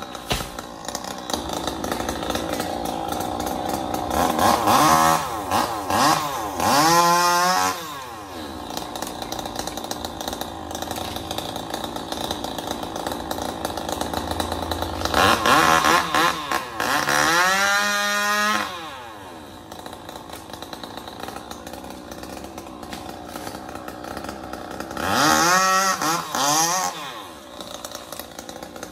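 Chainsaw engine running at a low throttle, opened up to high revs three times for a few seconds each while cutting trembesi wood; each time the pitch sinks as it drops back.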